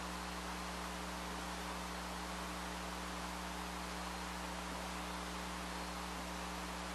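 Steady low electrical hum under a constant hiss, with no distinct sounds standing out.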